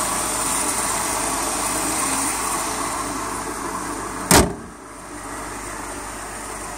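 2004 Mercedes-Benz E500's V8 idling steadily. A car door shuts with a single thump a little over four seconds in, after which the running sound is quieter.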